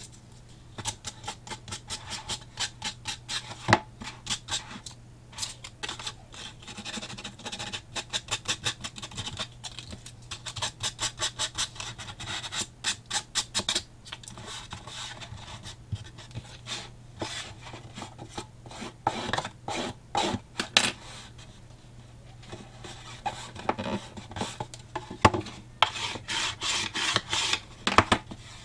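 Sandpaper rubbed back and forth over the edges and corners of a card-covered cardboard box, in quick runs of several strokes a second with short pauses between runs.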